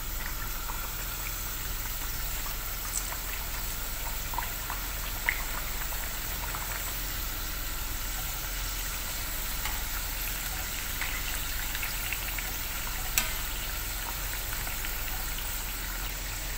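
Stuffed sweet pastries deep-frying in hot oil: a steady sizzle with small crackles and pops. There are two sharp clicks, about 5 and 13 seconds in.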